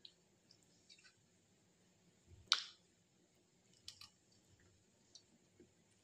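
Thick curry gravy simmering in a clay pot, with faint, irregular pops of bubbles bursting at the surface; the loudest pop comes about two and a half seconds in.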